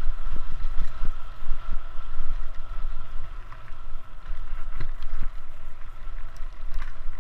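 Mountain bike rolling down a gravel forest trail, heard from a camera on the bike or rider: a steady low wind rumble on the microphone with tyres on loose stones, a few sharp knocks and rattles over bumps, and a faint steady high whine.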